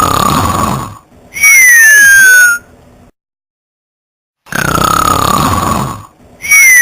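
Loud snoring in cycles: a rasping snore on the in-breath, then a high whistle falling in pitch on the out-breath. It comes twice, about five seconds apart, and the two cycles are identical.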